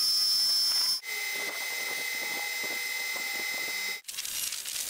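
Metal machining: a lathe runs with a tool held against a spinning steel disc, giving a steady high whine and hiss that changes in pitch about a second in. Near the end a drill press bores into the steel disc with a rougher, scratchier cutting hiss.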